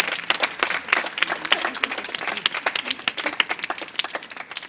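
A small group applauding by hand, the claps thinning out and dying away near the end.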